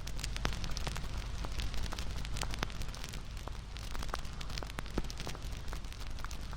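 Wood fire crackling: a steady hiss and low rumble with many sharp, irregular pops and snaps.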